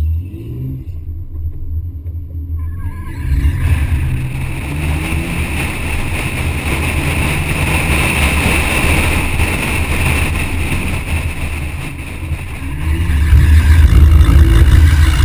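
BMW 130i's 3.0-litre straight-six pulling away and accelerating, its pitch climbing in the first few seconds. From about three seconds in, heavy wind rush on the door-mounted camera covers much of it. The engine grows louder near the end as the car turns into a corner.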